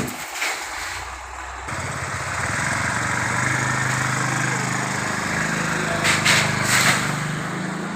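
Chainsaw engine running steadily, cutting in suddenly about two seconds in, with a few brief harsh bursts near the end.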